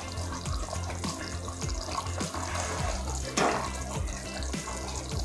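Steel ladle moving through thick eggplant curry gravy in a steel pan, with wet liquid sounds, over a low steady hum.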